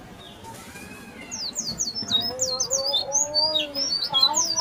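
Birds chirping in the trees: quiet at first, then many short, quick high chirps from about a second and a half in, with a lower, longer call partway through.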